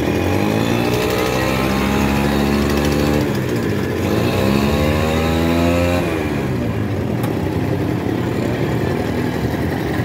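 A vehicle engine revving twice: its pitch rises, holds for a second or two, then drops, about four seconds in and again about six seconds in. Steady street traffic noise runs underneath.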